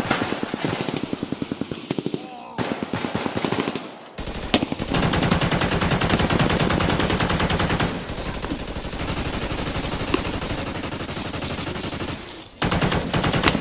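Heavy automatic gunfire: rapid shots close together in long bursts, at its loudest in the middle.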